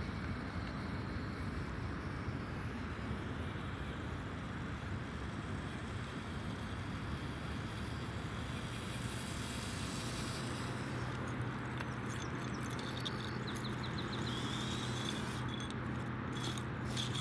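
Traxxas TRX-4M mini RC crawler's small electric motor and gears whirring steadily as it drives up a dirt track. In the last couple of seconds there are clicks and scraping as its tyres climb onto broken tile shards.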